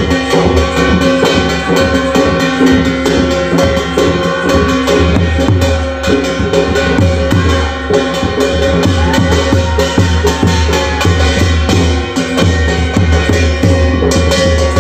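Folk drum ensemble of dhol, nisan kettle drum and tasa playing a fast, steady beat, with an organ holding sustained tones underneath.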